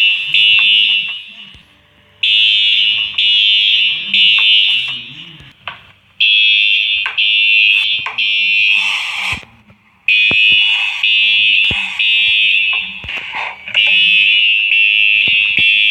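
Fire alarm sounding a loud, high-pitched beep in groups of three, with a pause of about a second and a half after each group. This is the temporal-three pattern that signals evacuation.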